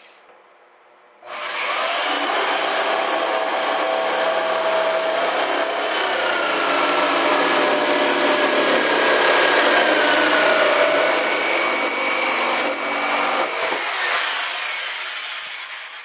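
Electric jigsaw cutting a round hole through a plastic cooler lid, starting about a second in, running steadily with a wavering whine, and winding down near the end.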